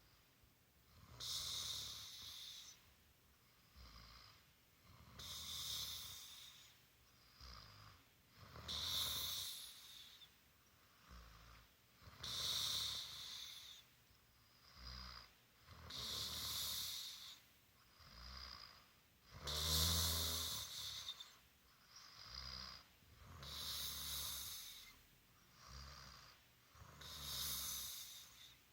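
A person asleep, snoring steadily: a loud snore about every four seconds with a softer breath between. The snore about two-thirds of the way through is the loudest, with a deeper rattle.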